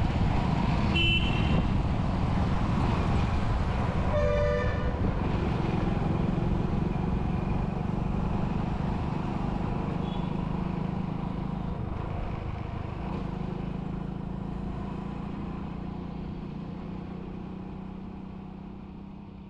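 Road traffic with a steady vehicle rumble. A short horn toot comes about a second in, and a longer vehicle horn honks about four seconds in. The rumble fades slowly toward the end.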